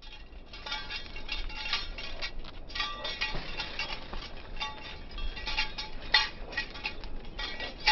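Metal hardware on a small dog's harness and leash jingling and clinking with each step as the dog trots, many light ringing strikes in quick, uneven succession.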